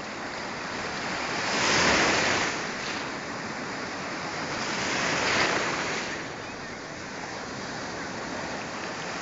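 Sea surf breaking and washing over the shallows, with a steady rush that swells twice as waves come in, the first swell, about two seconds in, the louder.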